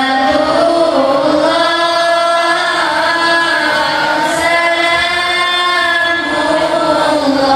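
Girls singing sholawat, an Arabic devotional song praising the Prophet, together through microphones: long drawn-out notes that bend up and down in melismatic turns, with no percussion.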